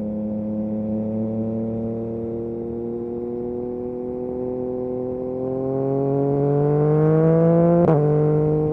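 Yamaha MT-09 SP's inline three-cylinder engine running through an Akrapovic exhaust: a steady pull, then rising in pitch and getting louder for about three seconds. Near the end a sharp click comes with a sudden drop in pitch, an upshift.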